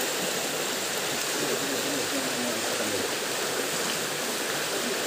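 Steady rush of flowing stream water, an even hiss that holds at one level throughout.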